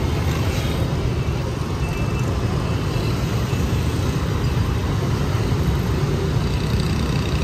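Steady road traffic in a busy city street: many engines running together as a continuous low rumble, with no single event standing out.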